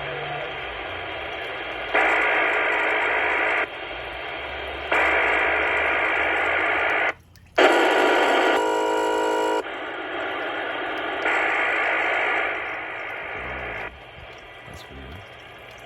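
Anytone AT-6666 CB radio receiver hissing with static on an open channel during skip, the noise stepping up louder several times for a couple of seconds each as distant carriers key up. One stretch, a little past the middle, cuts out briefly and then carries a cluster of steady tones; the hiss drops quieter near the end.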